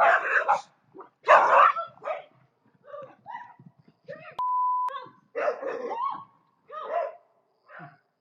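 A dog barking repeatedly in short, loud calls. A steady half-second beep sounds about four and a half seconds in.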